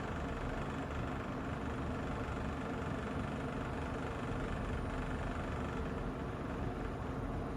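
Kolin air conditioner running with a rattling noise, steady throughout: an abnormal rattle in a unit less than a year old.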